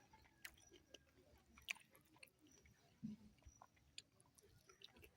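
Faint chewing as a person eats a meal of ugali, kale and meat, with small scattered clicks and one sharper click about a second and a half in.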